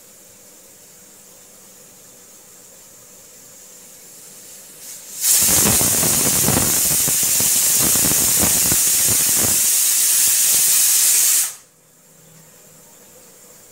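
Stovetop pressure cooker whistling as it lets off steam: a loud hiss starts suddenly about five seconds in, holds steady for about six seconds, then cuts off abruptly. The whistle shows the cooker has come up to pressure with the dal boiling inside.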